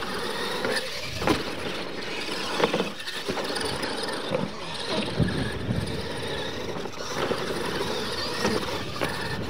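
Two radio-controlled monster trucks racing on dirt: motors whining up and down in pitch as they speed up and slow, tyres spraying dirt, with a few sharp knocks as the trucks hit the ramps and land off jumps.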